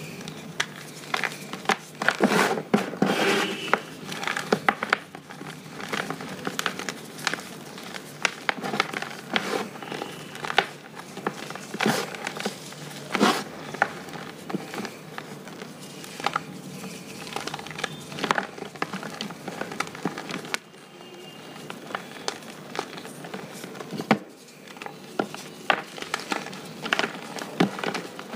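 Crumbly pressed blue powder being crushed and rubbed between the fingers: dense crackling and crunching with soft powdery rustling, thinning out for a few seconds about twenty seconds in.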